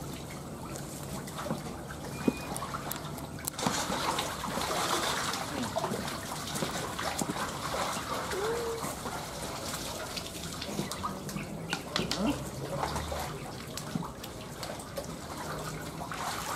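Water trickling and splashing in a nearly drained catfish pond, as catfish thrash in the shallow muddy water; near the end, feet splash through the water as someone wades in.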